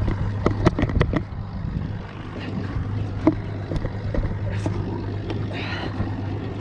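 Boat engine idling with a steady low hum, under a quick run of sharp clicks and knocks from the spinning reel and rod being handled in the first second or so, and one more click a little past the middle.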